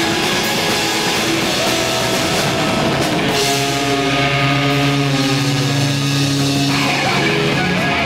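Live rock band playing: electric guitars, bass and drum kit together. From about three seconds in, the band holds a long sustained chord.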